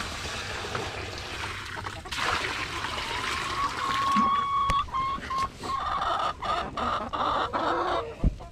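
Domestic hens in a flock calling and clucking: about four seconds in one hen gives a long level call, followed by a run of short, repeated squawking calls, with scattered light knocks. A steady rushing noise fills the first couple of seconds.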